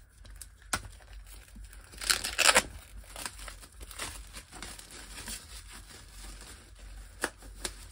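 Plastic shrink wrap crinkling as it is torn off a cardboard punch board, with a louder rip about two seconds in and a few sharp clicks near the end.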